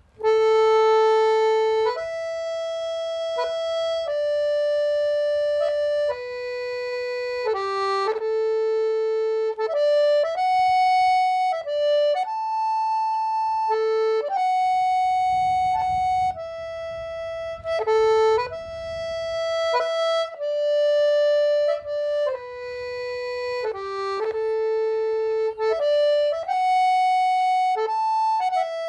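Background music: a slow melody played one note at a time on a reedy free-reed instrument, harmonica- or accordion-like, the notes held one to two seconds each.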